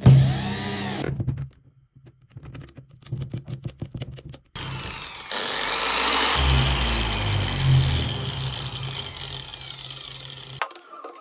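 Cordless drill briefly driving a screw into a stack of wooden discs, then a few light clicks and rattles. An angle grinder then starts with a homemade wooden drum sander on its spindle, runs free for a few seconds and winds down after it is switched off, stopping near the end.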